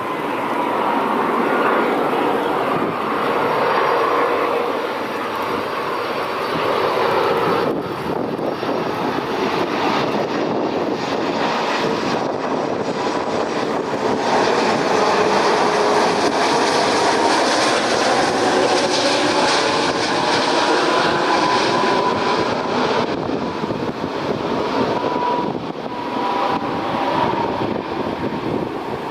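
Airbus A330-300 airliner's Rolls-Royce Trent 700 jet engines passing on approach to land: a loud jet roar with whining tones, its hiss strongest in the middle and easing a little near the end.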